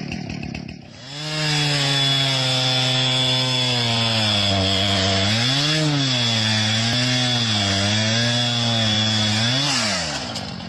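Chainsaw running steadily, likely cutting ice to free a trapped animal. It starts about a second in, its pitch briefly rises and falls about halfway through and again just before it stops, shortly before the end.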